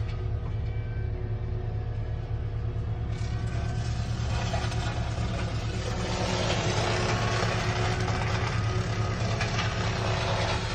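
Cat 299D3 compact track loader's diesel engine running steadily under the operator, with a rushing noise building from about three seconds in and growing louder from about six seconds.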